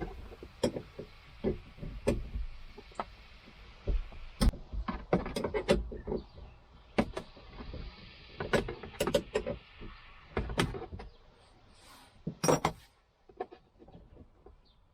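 Hand tools clicking, knocking and scraping against plastic interior trim and metal around a seat belt retractor housing, in irregular bursts of sharp knocks, with a louder clatter about twelve seconds in.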